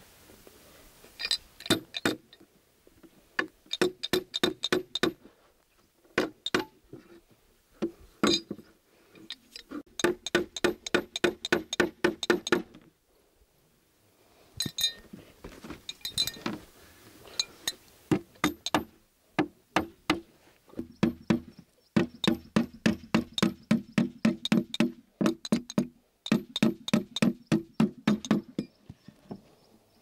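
Hammer driving nails into wooden planks: bursts of quick, sharp blows, several a second, each with a short ringing knock, broken by brief pauses.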